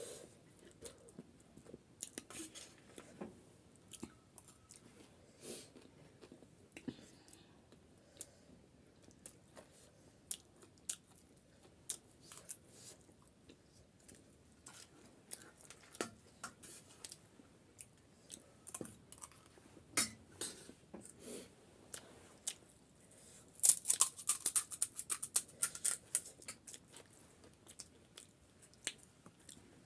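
Close-miked chewing and crunching of crisp Nepali street snack food, with scattered bites and mouth smacks and a dense run of crisp crunching at about 24 seconds in.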